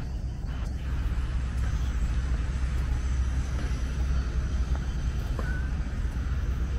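Busy street ambience: a steady rumble of passing traffic.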